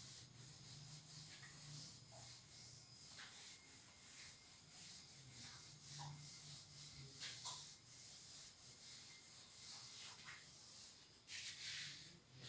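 Cloth wiping a whiteboard clean: faint, repeated rubbing strokes.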